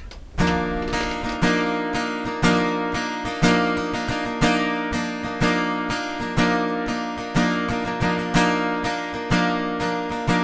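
Closing theme music: a strummed acoustic guitar, with a strong chord stroke about once a second and lighter strokes between, starting about half a second in.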